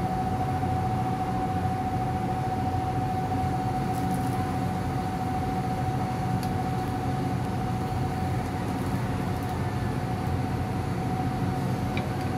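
Steady mechanical hum with a constant mid-pitched whine, and a few faint clicks of a knife on a cutting board.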